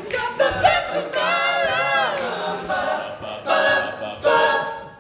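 Men's a cappella group singing with no instruments: several voices blending, and a sliding run of notes that falls in pitch about two seconds in.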